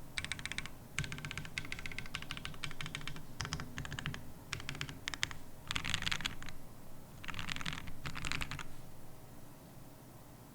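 Typing on a Sperno59 custom mechanical keyboard with an aluminum top and brass bottom case, FR4 plate, Nebula switches and Drop DCX keycaps, no foam inside. Bursts of fast keystrokes with short pauses between them, stopping about two seconds before the end.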